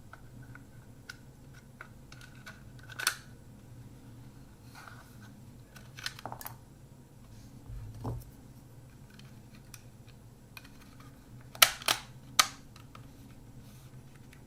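Small plastic parts of a Kodak Ektar H35N half-frame film camera being handled and fitted together: scattered light clicks and taps, with a sharper click about three seconds in and three louder clicks in quick succession near the end, over a low steady hum.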